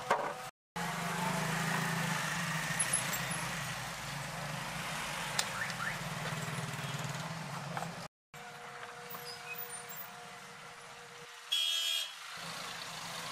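Street traffic noise with a low steady hum, a few small clicks from the plastic headlight housing being handled, and near the end a short hiss of a trigger spray bottle squirting.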